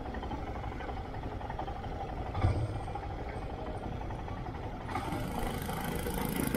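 A vehicle's engine running steadily while on the move, with road and wind noise and a single knock about two and a half seconds in.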